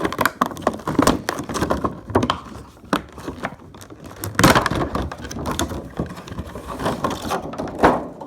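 Toy packaging of cardboard and plastic being handled and opened: rustling, crackling and many irregular clicks and knocks, with the heaviest knocks about halfway through and near the end.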